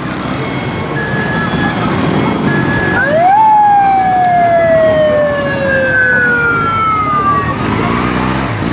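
Police motorcycle siren wailing: a quick rise about three seconds in, then a long, slow falling sweep, over the noise of a walking crowd.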